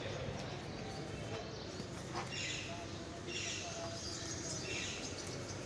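Birds chirping several times over faint street ambience, with light rustling and tearing of leafy fodder as a sheep and a goat feed from a bundle.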